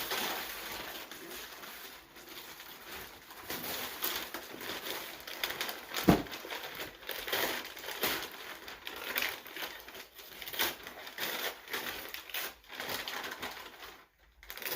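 Wrapping paper being torn and crumpled off a gift box, an irregular crinkling and rustling, with a single sharp thump about six seconds in.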